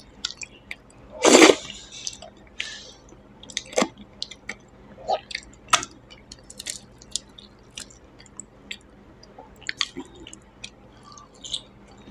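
Close-up sounds of eating by hand: fingers squishing and mixing rice on a plate, with wet chewing and lip-smacking clicks. One louder, longer wet burst comes about a second in.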